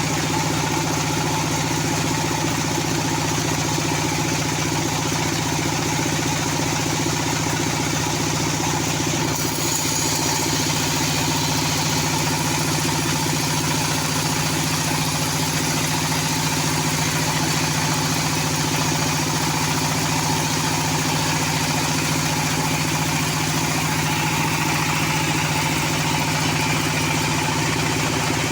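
Engine of a horizontal band sawmill running steadily with a low hum. A brighter, higher hiss joins about ten seconds in.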